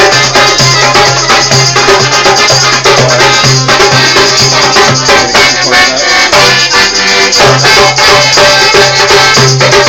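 Live accordion and hand drum playing a lively, rhythmic folk tune, loud and close, with a steady low accompaniment and regular drum strokes.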